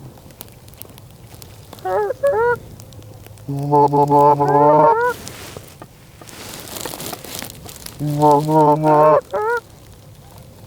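Geese honking in several bursts of overlapping calls, with a gust of wind on the microphone between them.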